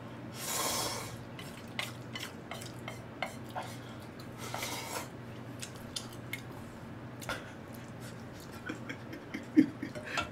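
Ramen noodles slurped twice, amid the light clicks of metal chopsticks and a small metal bowl against a thin yellow aluminum pot, with one louder knock near the end.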